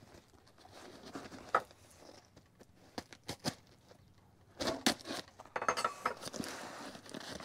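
Knife blade cutting through packing tape on a cardboard box: scattered scrapes and taps, then a denser rustle of cardboard and tape being pulled apart in the last couple of seconds.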